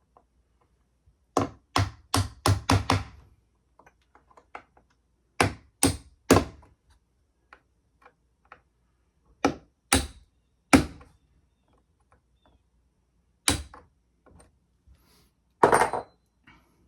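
Hammer tapping a nail set to sink finish nails the last quarter inch into wooden window trim: sharp taps in short bursts, a quick run of about six, then groups of two or three, then single strikes near the end.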